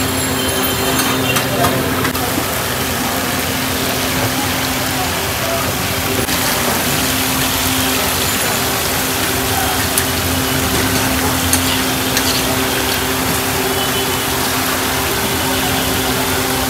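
Chicken pieces and potato fries sizzling in oil on a large flat pan as a metal spatula stirs and scrapes them, with a few sharp clicks. A steady hum and background voices run underneath.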